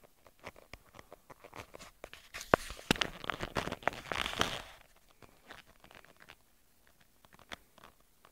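Handling noise from a handheld camera: scattered clicks and rubbing, with a louder stretch of rustling from about two to nearly five seconds in, while the camera swings fast.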